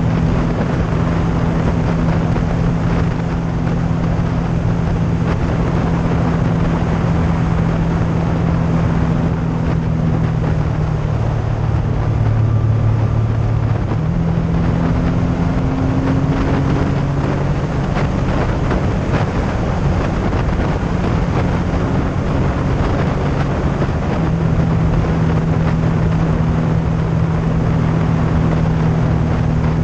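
Yamaha FZ-09 motorcycle's three-cylinder engine running at a steady cruise, with wind rushing over the microphone. About eleven seconds in the engine note drops lower, then climbs back a few seconds later.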